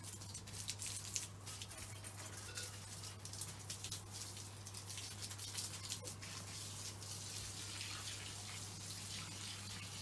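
Water spraying from a garden hose onto shrub leaves and garden plants: a steady hiss with small irregular splashes.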